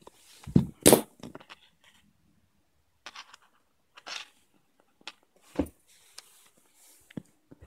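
Handling noises as small electronic parts and thin wire are moved about on a tabletop: scattered knocks and clicks with short rustles, the loudest knocks about a second in and just past halfway.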